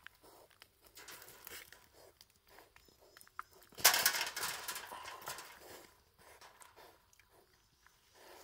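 Young wild boar moving inside a steel mesh box trap, with soft footsteps and rustling over chestnuts and leaf litter. About four seconds in there is a louder scuffle as it dashes across the trap, fading over the next second or so.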